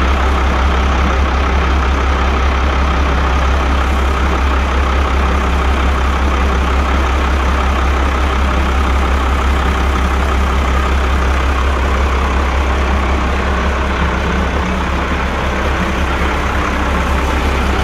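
1996 Cummins C8.3 inline-six turbodiesel idling steadily, a low, even drone.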